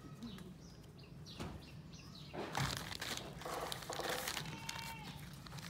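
Thin plastic packet crinkling as it is handled, in rustling bursts over the second half.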